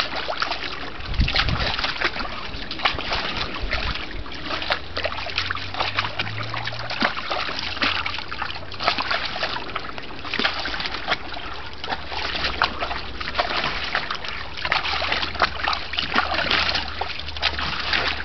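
A bulldog splashing about in the shallow water of a plastic kiddie pool: continual irregular splashes and sloshing of water.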